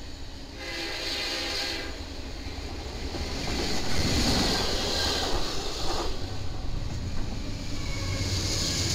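Diesel-hauled freight train passing at speed close by, a steady rush of wheels on rail over a low engine rumble. A short pitched tone sounds in the first two seconds, and the train is loudest about four seconds in.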